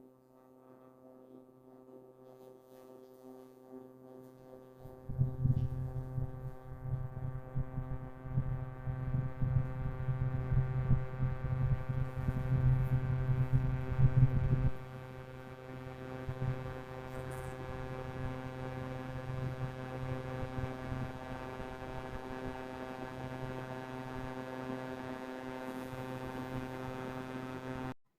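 Ceiling fan running with a steady hum that builds up over the first few seconds. From about five seconds in to about fifteen, a loud, rough low rumble from the fan's bearing rides over the hum, then drops away, leaving the hum alone until it cuts off near the end.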